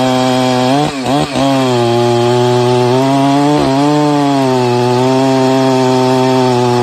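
Two-stroke chainsaw running at high revs with a steady pitch, which dips briefly and recovers about a second in and again a little past halfway.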